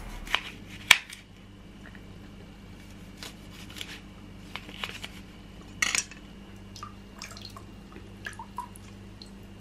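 A knife cutting limes on a plastic chopping board, the blade striking the board in a few sharp clicks, the loudest about a second in and near the middle. Toward the end, small plops and drips of water as the lime pieces are rinsed in a basin.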